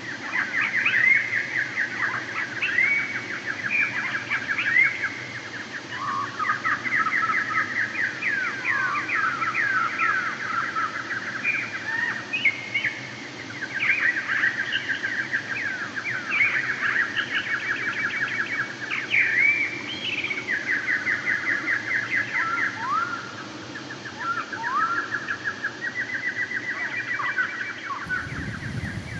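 A songbird singing continuously: rapid trills and short rising whistles, with brief lulls now and then.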